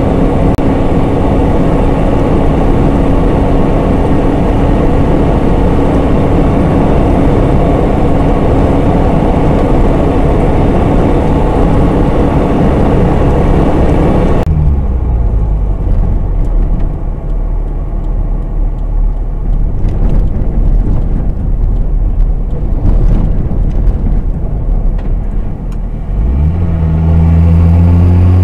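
Vehicle engine and tyre noise heard from inside the cabin: a steady drone at highway speed, which changes abruptly about halfway through to a duller, quieter drone with scattered clicks. Near the end the engine accelerates, its pitch rising and growing louder.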